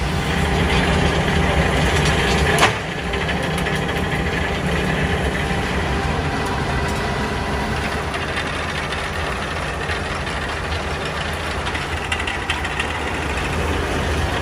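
Steady machinery running with a low rumble and hum, from the bangle factory's glass-coil winding machine, whose long rotating rod winds the glass into a spiral. A single sharp knock sounds about two and a half seconds in.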